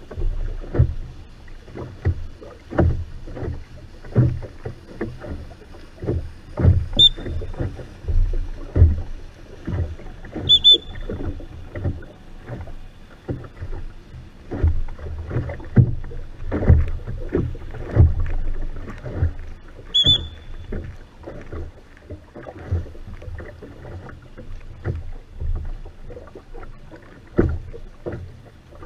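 Oars of a Venetian rowing boat (voga veneta) working the water: a steady run of uneven splashes and knocks from the strokes, with three brief high squeaks.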